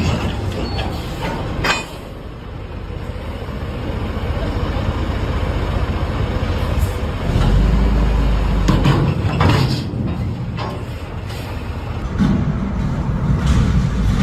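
Large mining dump truck's diesel engine running low and heavy as the truck drives up onto a lowboy trailer, with a few sharp metallic knocks along the way.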